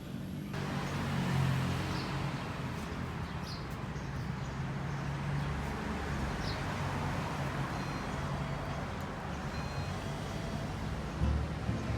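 A vehicle running steadily while travelling: a low engine hum under an even rushing noise.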